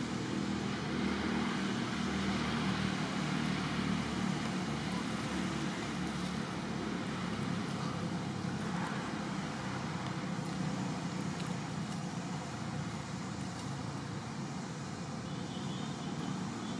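Steady low rumble of motor traffic, with a wavering engine drone underneath.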